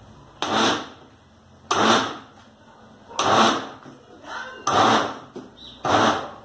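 Countertop electric blender run in short pulses, five bursts of about half a second each, roughly every second and a half, churning thin corn cake batter. It is pulsed only briefly to stir in baking powder, which must not be blended long.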